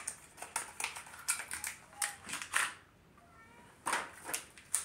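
A small cardboard blind box handled and squeezed in the hands: a run of light clicks, taps and crinkles. The handling pauses about three seconds in, and a brief faint squeaky tone is heard in the pause.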